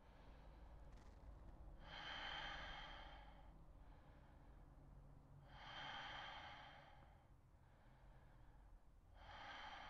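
A man breathing slowly and audibly while holding a seated yoga forward fold: three long breaths a few seconds apart, each lasting about a second and a half.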